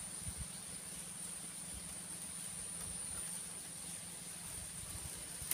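Insects calling with one steady high-pitched tone over quiet outdoor ambience by a small canal, with a sharp click near the end.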